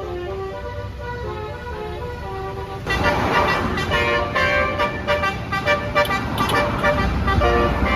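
Indonesian bus 'telolet' horn (Basuri multi-tone air horn) playing a tune of stepping notes. About three seconds in it becomes louder and fuller, with more notes sounding together over a noisy background.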